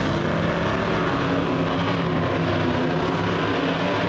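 Several race-car engines running hard at once as the field laps the oval, a steady dense engine din with no break.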